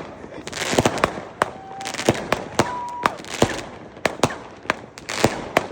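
Category F2 consumer fireworks and firecrackers going off all around: sharp bangs at irregular intervals over continuous crackling, with two brief steady whistles near the middle.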